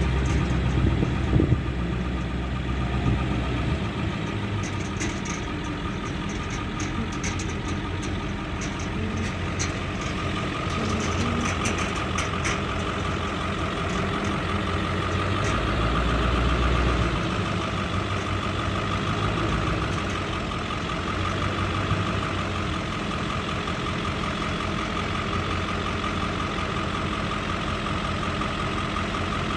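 Engine of farm harvest machinery running steadily during a corn silage harvest. A steady whine comes in about a third of the way through, with scattered light clicks in the first half.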